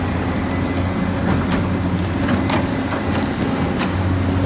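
A steady motor hum with a hiss over it and a few faint clicks.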